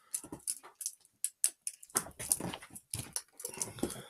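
A pet animal making a few short calls from about two seconds in, over light clicking and rustling of trading cards being handled.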